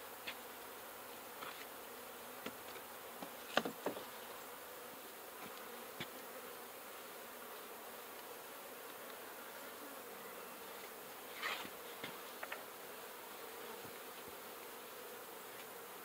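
Honeybees buzzing steadily around an opened hive, with a few short wooden knocks as hive boards and boxes are handled, a cluster about three and a half seconds in and another around eleven and a half seconds.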